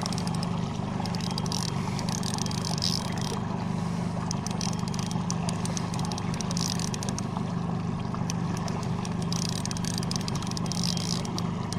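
Boat's outboard motor running steadily at trolling speed, a constant low hum, with patches of high hiss and fine clicking coming and going over it.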